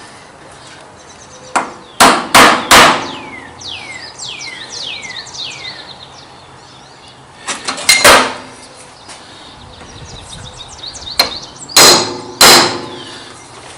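Sharp hammer taps on metal in groups: three quick strikes early on, two about 8 seconds in, then three more near the end. These are typical of tapping a DRO scale into line on a lathe carriage where one end sits high.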